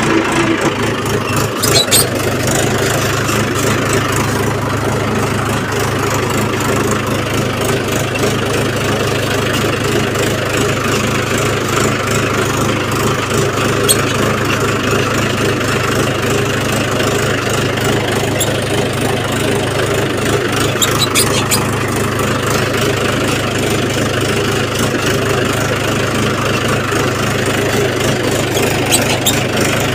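Tractor diesel engine running steadily as the tractor drives along at low speed, with a few short knocks about two seconds in and again past the middle.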